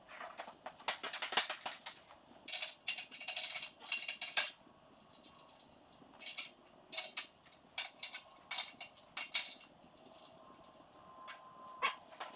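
Metal hand tools clinking and clattering in short, irregular bursts as they are gathered and handled, with a few knocks and scuffs in between.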